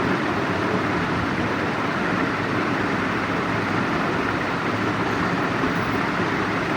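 Steady, even mechanical noise of a machine running continuously, with no change in level or pitch.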